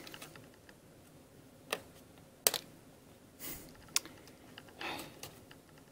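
Hard plastic toy speeder handled while a cargo net is worked onto its hooks: a few sharp plastic clicks, the loudest about two and a half seconds in, with soft rustles between.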